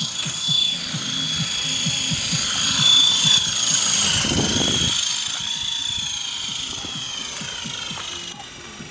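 Esky Big Lama coaxial electric RC helicopter in flight, its motors and rotors giving a steady high whine that bends slightly in pitch as it moves. It is loudest about three seconds in, as it passes close, and grows fainter near the end as it climbs away.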